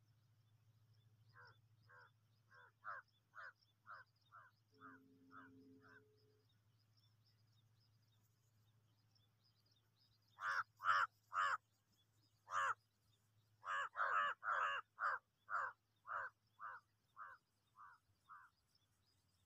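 A bird calling in rapid series of short, repeated calls, about two a second: a fainter run in the first few seconds, then louder calls from about ten seconds in that tail off near the end. A low steady hum lies underneath.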